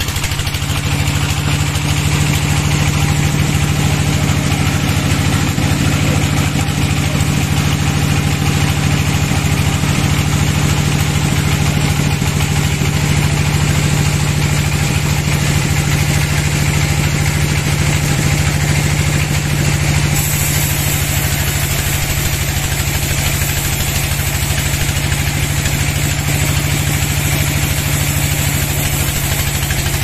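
Large band sawmill running: its drive engine and band blade give a loud, steady hum. The sound shifts in character about twenty seconds in, and near the end the blade is cutting through a big log.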